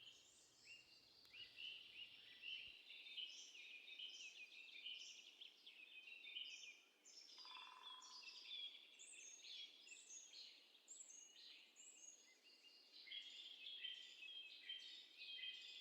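Faint songbirds singing, many short chirps and trills overlapping from several birds at once.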